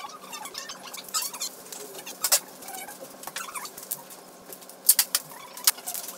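Household items being handled and set down: a few sharp clicks and knocks, one about two seconds in and three close together near the end, with faint high squeaks between them.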